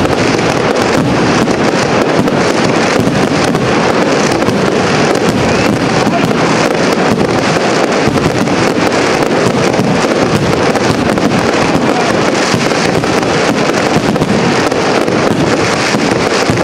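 Aerial fireworks shells bursting in a dense barrage: many bangs and crackles running together with no pause, at an even loudness.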